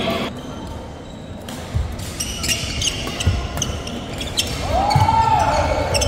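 Badminton rally: several sharp racket hits on the shuttlecock, then about a second before the end a court-shoe squeal on the floor that rises, holds and falls.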